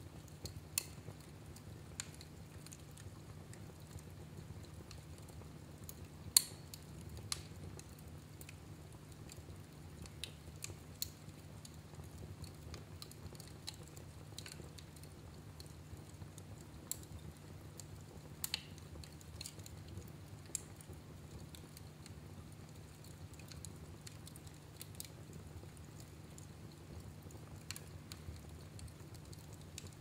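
Wood logs burning in a fireplace: sparse, irregular crackles and pops over a low steady background, with one sharp pop about six seconds in standing out as the loudest.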